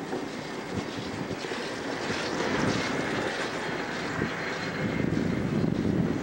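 Chairlift running: a steady mechanical noise from the moving haul cable and chair, growing louder as the chair nears a lift tower, with a faint high whine in the middle.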